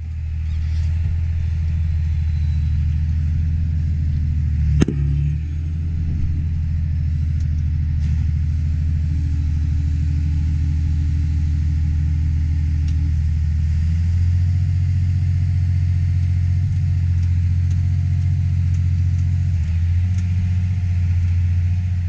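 John Deere tractor's diesel engine heard from inside the cab, a steady low drone that swells as the tractor pulls away at the start. There is a single sharp clunk about five seconds in.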